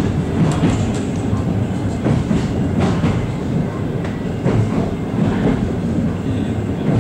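Passenger coach of a TLK express train running on the rails, heard from inside the carriage: a steady low rumble with irregular clicks and knocks from the wheels over the track.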